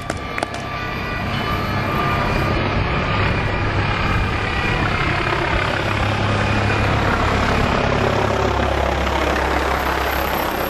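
Loud aircraft engine noise that swells over about two seconds and then holds steady, with a low hum that drops in pitch near the end before cutting off abruptly.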